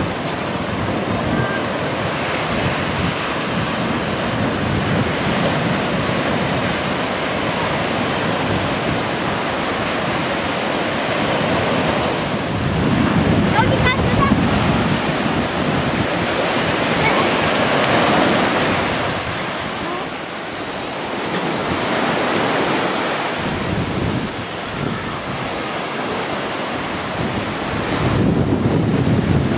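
Ocean surf breaking and washing up a sandy beach, swelling louder as each wave comes in, with wind buffeting the microphone.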